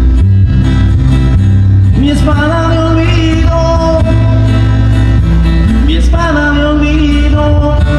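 Loud recorded music with a pulsing bass line, played over a sound system; a sung vocal line comes in about two seconds in and again near six seconds in.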